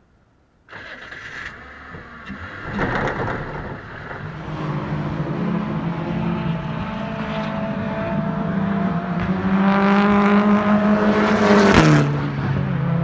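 Race car's engine at full throttle on the circuit, starting abruptly less than a second in, its note climbing and growing louder as it approaches, then dropping sharply in pitch as it passes near the end.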